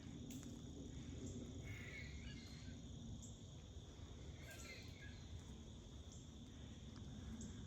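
Faint squirrel alarm barks, a few short scattered calls, over a steady high-pitched insect drone.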